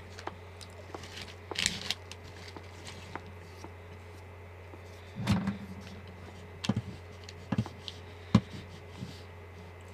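Scattered small knocks and clicks of hands and things on a table, with a short rustle of a paper tissue early on and a heavier thump about halfway through; a steady low hum runs underneath.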